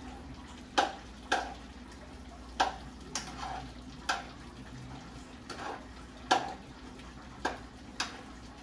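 Kitchen utensil knocking against a cooking pot about nine times at uneven intervals, over the steady bubbling of a pot of curry chicken back cooking on the stove.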